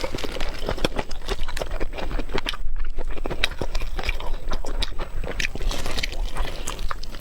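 A person chewing and biting steamed pork skin roll, a dense, uneven run of short mouth clicks and smacks throughout. The skin may be too chewy and hard to bite, having been cooked too briefly.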